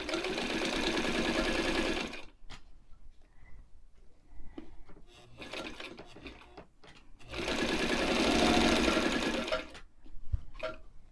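White 173 sewing machine stitching quilt binding in two runs of about two and a half seconds each, one at the start and one about seven seconds in. Between the runs there are soft clicks and rustles as the fabric is handled.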